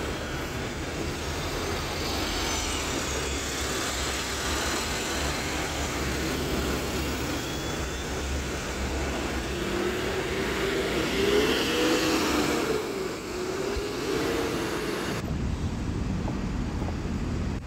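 City-centre traffic with buses running past: a steady engine rumble and road noise, with a whine that rises and falls from about ten to fourteen seconds in.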